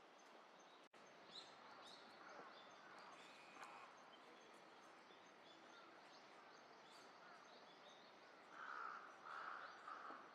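Faint outdoor ambience with small birds chirping thinly, then a crow cawing about four times in quick succession near the end.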